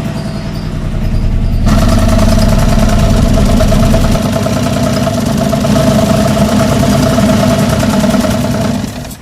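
Perodua Kenari's small three-cylinder petrol engine running, picking up and getting louder about two seconds in, then holding a steady speed before fading near the end.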